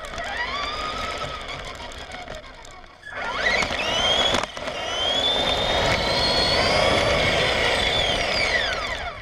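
Electric motor and drivetrain of a Traxxas LaTrax Prerunner RC truck whining as it drives, over a rumble of tyres on asphalt and dirt. The whine climbs sharply about three seconds in and cuts off briefly. It then rises again, holds high, and falls away near the end.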